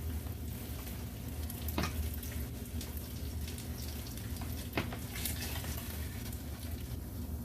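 Trout fillets frying in hot oil in a pan: a steady sizzle with a few sharp pops and crackles, the loudest about two and five seconds in.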